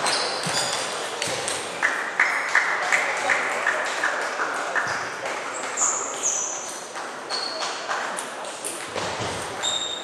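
Table tennis balls clicking off bats and table tops, many sharp knocks through the hall, with a quick even run of ticks from about two seconds in, under a murmur of voices.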